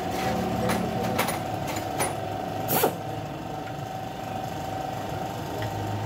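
Metal clinks and knocks as tools and parts are handled on a stripped-down Suzuki Every engine, the loudest a sharp clank a little under three seconds in, over a steady mechanical hum.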